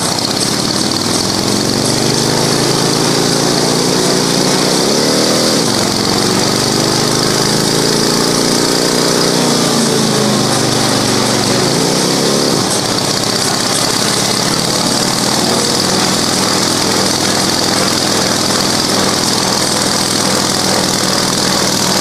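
Harley-Davidson V-twin motorcycle engine running while the bike is ridden on a stationary Jumpstart roller stand. Its revs climb over the first few seconds and fall back, then climb again for several more seconds. About halfway through it drops back to a steady idle.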